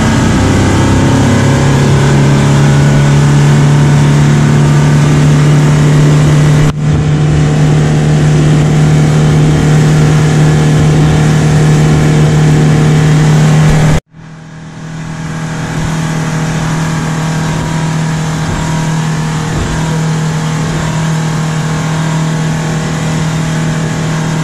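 Speedboat engine running hard at a steady pitch over a rushing noise, its note stepping up just after the start. The sound breaks off briefly about 7 seconds in and abruptly about 14 seconds in, then carries on a little quieter.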